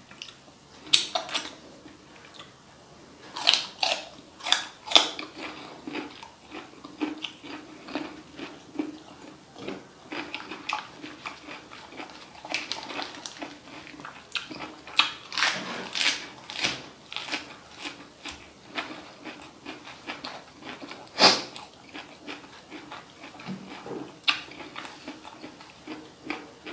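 Close-miked eating of balut (boiled duck egg) in chili sauce: wet chewing, lip smacks and slurps, with sharper crunches now and then, one loudest about two-thirds of the way through.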